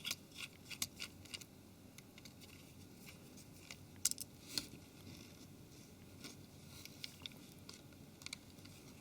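Faint, scattered small clicks and ticks of a T6 Torx screwdriver working small screws out of a mobile phone's frame, with a couple of sharper clicks about four seconds in.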